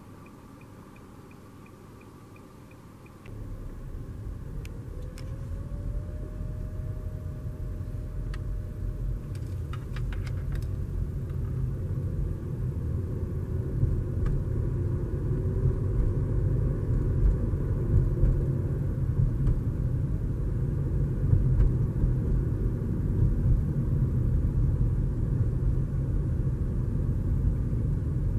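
Steady low rumble of a car driving slowly on a paved road, heard inside the cabin, with tyre and engine noise that starts suddenly about three seconds in and grows gradually louder.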